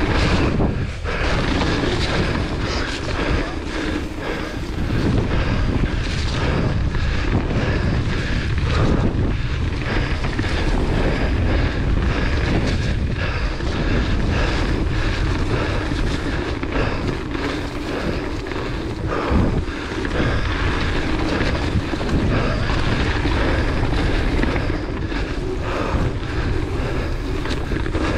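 Wind rushing over the action camera's microphone on a fast mountain-bike descent, with the tyres rolling over a dirt trail and the hardtail's frame and chain rattling at every bump.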